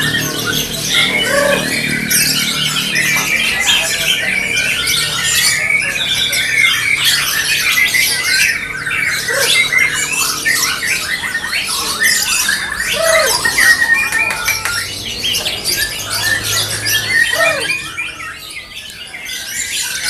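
White-rumped shama (murai batu) singing a fast, unbroken stream of varied high whistles and chattering notes, which thins out about eighteen seconds in.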